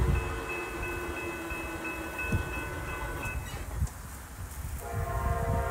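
Distant locomotive air horn sounding as a train approaches: a long multi-note chord ends a little past halfway, and after a short pause another blast begins near the end.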